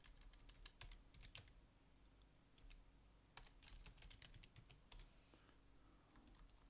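Faint typing on a computer keyboard: quick runs of keystrokes separated by short pauses.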